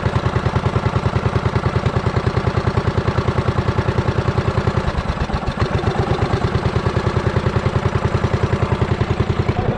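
A small engine running steadily with an even, rapid chugging of about eight or nine beats a second; the beat blurs briefly about five seconds in.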